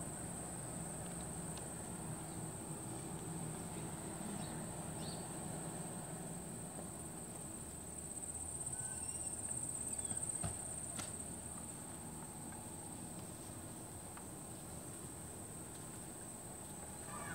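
Steady high-pitched chirring of insects, over a faint low background hiss, with a couple of faint clicks about ten seconds in.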